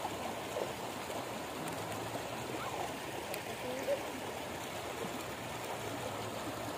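River water running steadily over a shallow stretch of the riverbed, an even rushing sound.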